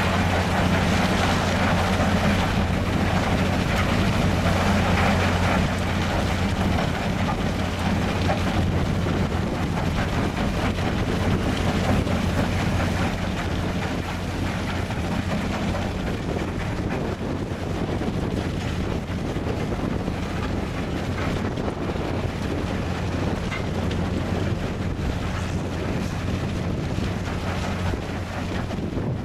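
Heavy earthmoving machinery running steadily: a wheel loader's diesel engine and a belt feeder working, with a constant low hum and wind buffeting the microphone.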